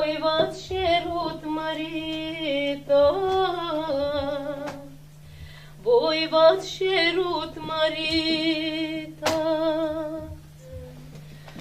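A woman singing a Moldovan folk song unaccompanied, in two long phrases with wavering vibrato, over a steady low hum.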